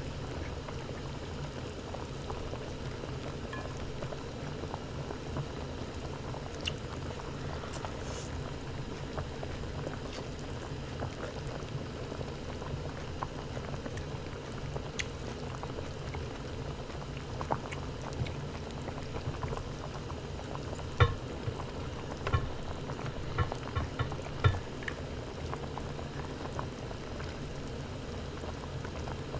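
Broth bubbling steadily in a steel hotpot, with a few sharp clicks and taps in the second half.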